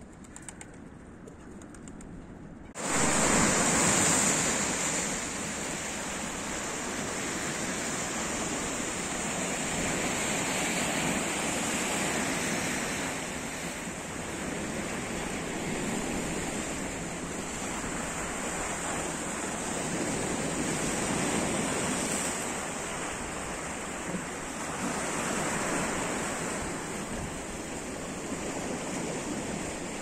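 A few faint gull calls over a quiet background, then, about three seconds in, a sudden change to a loud, steady rush of sea surf that slowly swells and eases.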